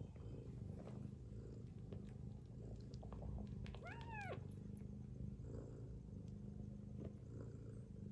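Mother cat snoring: a low, steady rumble that runs on without a break. About four seconds in, one short, high kitten mew rises and falls in pitch.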